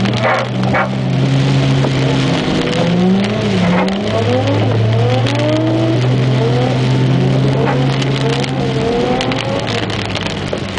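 Nissan Skyline R32 engine revving hard while drifting, its pitch climbing and falling again and again over a steady low engine drone.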